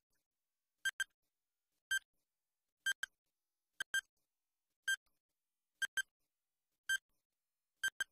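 Countdown timer sound effect: a short electronic tick-beep about once a second, several of them doubled into a quick pair of ticks.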